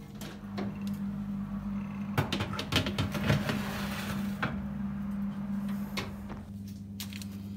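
Metal baking tray scraping and clattering as it is slid into a preheated oven, then the oven door knocking shut about four and a half seconds in, over a steady low hum.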